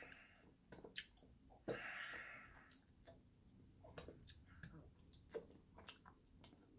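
Faint close-up mouth sounds of eating: soft chewing and scattered wet lip and tongue clicks as sticky fingers are licked, with a short breath about two seconds in.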